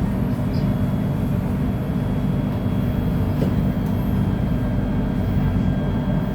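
Steady running noise of a KTM Komuter electric multiple unit heard on board: an even low rumble with a faint steady high-pitched whine above it.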